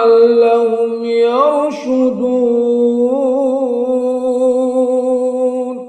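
A man's voice in melodic Quran recitation (tajweed), holding a long ornamented note whose pitch wavers and glides. It fades out right at the end as the recitation closes.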